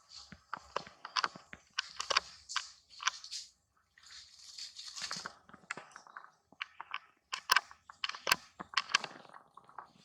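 Irregular crunching and crackling: a string of sharp clicks with rustling between them, briefly stopping about four seconds in.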